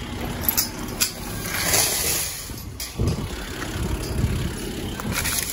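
Rusty chain clinking and rattling as a metal gate is unchained and moved, with sharp clicks and a knock about three seconds in, over a steady low rumble.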